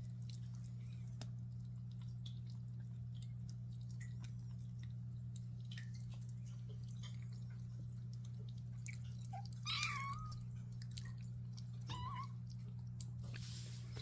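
A cat eating while making a low, steady rumbling hum, the sound that the owners liken to an old refrigerator breaking down. Two short rising mewing cries come about ten and twelve seconds in.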